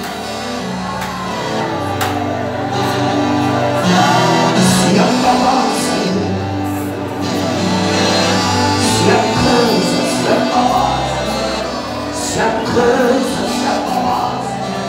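Church worship music with singing over a steady bass line, the bass notes changing every second or two.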